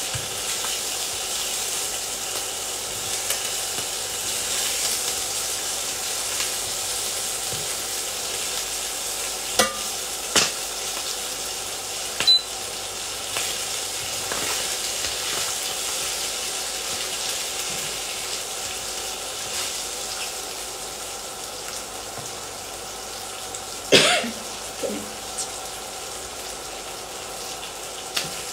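Chicken wings frying in oil in a pan, a steady sizzle, with a few sharp clinks of metal tongs against the pan as the wings are turned, the loudest late on.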